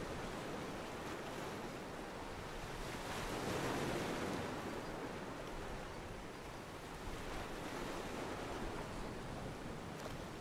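Ocean waves washing against a pier, a steady wash of surf that swells louder once about three to four seconds in.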